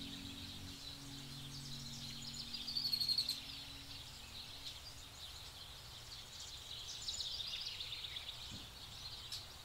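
Faint birdsong: many small high chirps and twitters, with a busier flurry about three seconds in.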